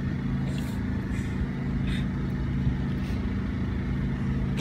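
A motor engine running steadily, a low, even hum, with a few faint clicks over it.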